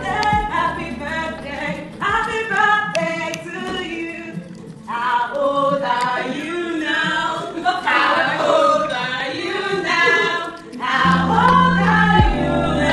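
Several voices singing together, mostly without accompaniment; a steady low bass comes back in about eleven seconds in.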